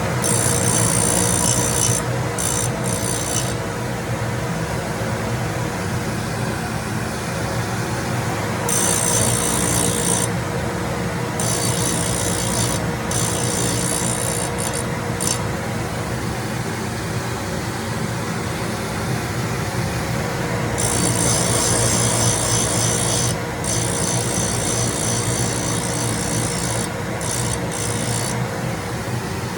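Sharpening of stack cutters: a machine runs steadily with a low hum, while the cutter's edge is worked against the abrasive in stretches of high, hissing scraping. There are three such passes, a short one at the start, one about nine seconds in and a longer one about twenty seconds in.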